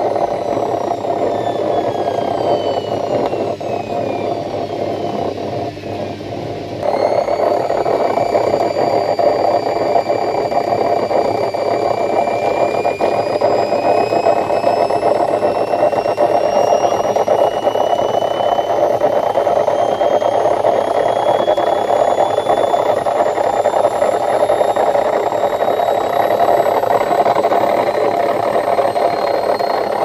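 Hoover automatic washing machine drum in its high-speed spin, making a loud rumbling noise with a whine. The whine falls in pitch for the first several seconds, then about seven seconds in the noise abruptly gets louder and the whine climbs steadily as the drum speeds up. The noise is the sign of worn drum bearings, which are replaced along with the seal to cure it.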